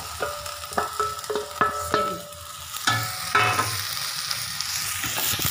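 Okra pieces sizzling in hot oil and masala in a kadai as they are tipped in and stirred with a wooden spatula. Several ringing metal clanks come in the first two seconds, then a steady frying hiss with the scrape of stirring.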